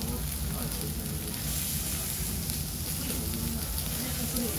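Beef steak and vegetables sizzling steadily on a hot steel teppanyaki griddle.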